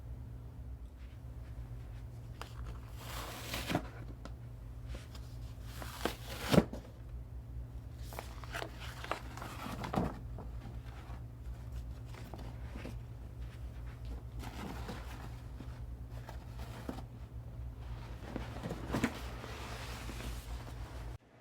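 Handling sounds of unboxing: scattered rustles of packaging and a few sharp knocks of items being moved and set down, the loudest about six and a half seconds in, over a steady low hum.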